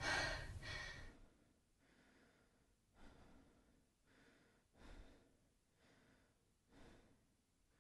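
A louder sound, the tail of the song that was playing, cuts off about a second in. Then a woman breathes heavily and sighs, faintly, about once a second.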